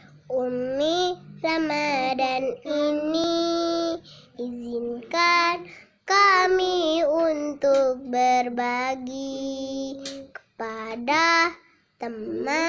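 A young girl singing a song, her sung phrases broken by short pauses.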